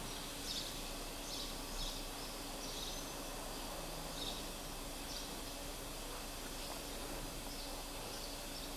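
Faint, soft scratchy strokes of an eyeshadow brush blending powder on the eyelid, coming irregularly every second or so over a low, steady room hiss.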